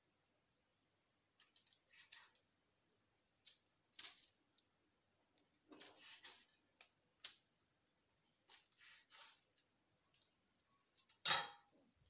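Kitchen knife slicing a log of soft cookie dough lengthwise on parchment paper: a series of short scraping, rustling strokes with pauses between them, and a louder clack with a brief ring near the end.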